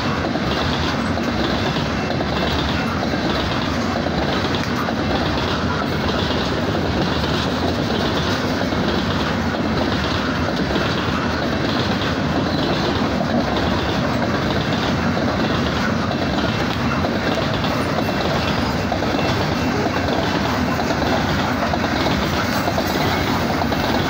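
Coal train's hopper cars rolling steadily past, wheels clattering over the rails in a regular rhythm that repeats about once a second.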